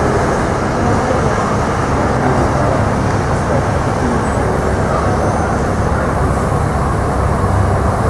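Boeing 737-800's CFM56-7B jet engines running at taxi power as the airliner rolls along the taxiway: a steady, dense noise with a faint high whine above it.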